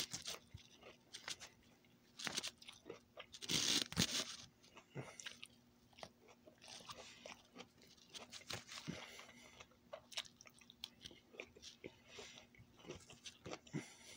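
A person chewing broccoli close to the microphone: irregular crunches throughout, loudest about three and a half to four seconds in.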